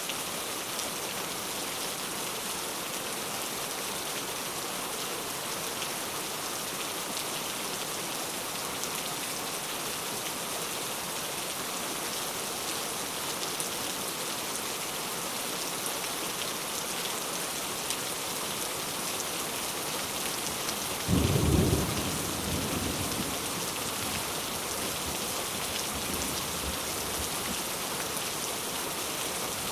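Heavy rain falling steadily as an even hiss. About two-thirds of the way through, a sudden clap of thunder breaks in and rumbles away over several seconds.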